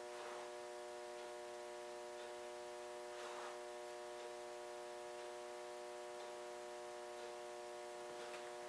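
A steady electrical hum with hiss, with a faint soft rustle about three seconds in.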